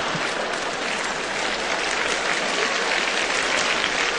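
Large theatre audience applauding: a dense, even spread of clapping that holds at a fairly constant level.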